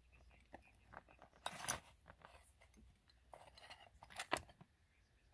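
Steel combination-plane cutters clicking and rattling against one another and their wooden box as they are handled and one is lifted out: a cluster of small clicks about a second and a half in and another a little after four seconds.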